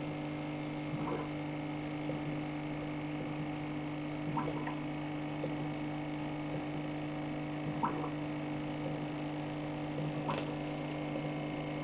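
Aquarium pump humming steadily, a low tone with its overtone, with a few faint clicks now and then.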